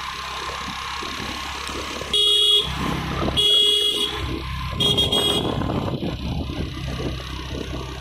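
A vehicle horn honks three times, each blast about half a second long and about a second apart, over steady road and engine noise from a moving two-wheeler.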